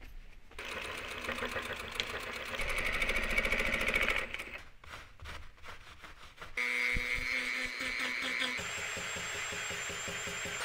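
Handheld rotary tool running with a grinding bit against denim to distress a pair of jeans. It starts about half a second in, stops for a couple of seconds with a few clicks, then runs again with a steady whine.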